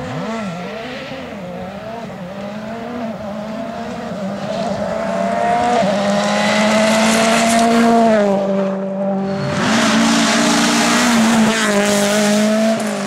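Rally car engine at high revs, its pitch stepping up and down through gear changes as the car comes closer, loudest about eight seconds in. There is a short lift near nine seconds, then it pulls hard again with a rushing hiss.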